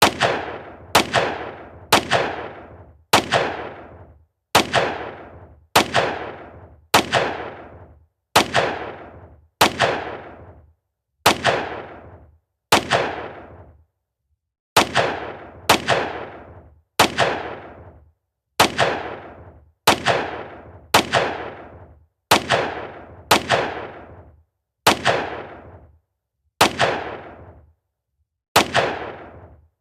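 Fireworks going off one after another, about twenty sharp bangs roughly a second apart, each fading away over about a second.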